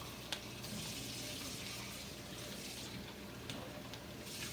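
Onions sizzling in a frying pan, a steady hiss, with a couple of small clicks from kitchen utensils.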